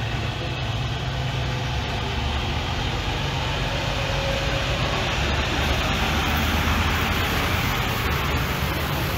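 Diesel semi-truck tractor hauling a race-team trailer drives slowly past at close range. Its engine runs with a steady low rumble that gets louder a little past halfway through as the cab and trailer go by.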